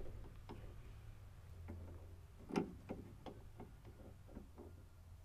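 Light, irregular clicks and taps of a loose rear suspension vertical link being handled against the installed link and hub, with one louder knock about two and a half seconds in, over a steady low hum.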